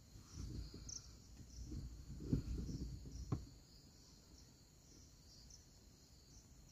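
Crickets chirping steadily in a high pulsing band at night. Low rumbling and two knocks about two and a half and three and a half seconds in, the knocks being the loudest sounds.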